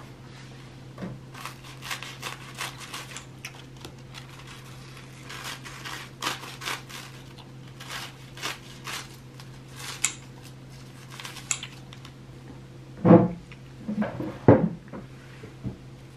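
Crisp, lightly toasted bread being torn and handled by hand: a run of short crackly crunches and rustles. Two louder knocks come near the end.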